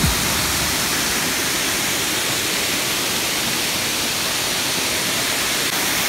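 Waterfall: water pouring over a rock face into a pool, a steady rushing noise with no change in level.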